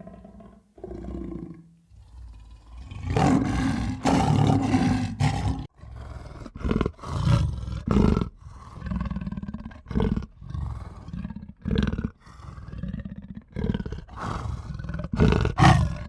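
A farm animal calling loudly over and over: about a dozen low-pitched calls with short pauses between them, one of the longest a couple of seconds in.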